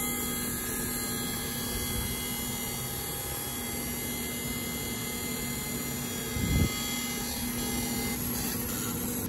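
Fiber laser marking machine humming steadily while it engraves a metal pistol slide, several steady tones over an even mechanical hum. A brief low thump about six and a half seconds in.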